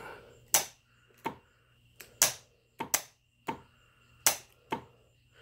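Electromagnetic clutch on a 2003 Lincoln Town Car AC compressor clicking in and out as a live wire is tapped to its coil terminal. There are about nine sharp clicks at uneven spacing. The clicking is the clutch plate snapping against the pulley, a sign the clutch works again now that rust and corrosion have been cleaned out.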